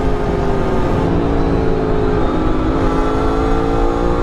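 Aprilia RS4 50's two-stroke single-cylinder engine running under way, its pitch dipping slightly about a second in and then climbing slowly, with wind rushing over the microphone.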